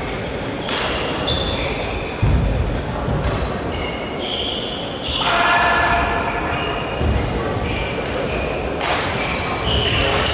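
Athletic shoes squeaking on a badminton court floor, many short high squeaks, with a couple of dull thuds about two and seven seconds in.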